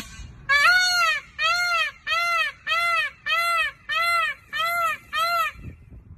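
Peacock calling: a rapid series of eight loud, short calls, each rising then falling in pitch, about one and a half calls a second.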